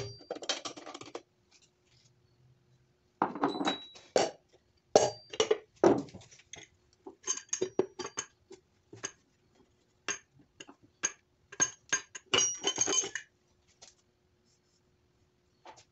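Metal clinking and tapping as a tool and the connecting-rod caps and bearing shells are handled on a stripped Honda D16Y7 engine block: scattered sharp clinks, some with a short ring, coming in uneven clusters for about ten seconds, over a faint steady hum.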